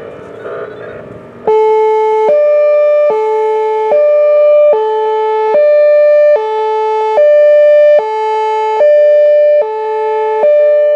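Whelen Vortex R4 electronic outdoor warning siren sounding its Hi-Lo signal: two steady tones alternating high and low, switching about every 0.8 s. It starts about a second and a half in, after the fading tail of the previous signal.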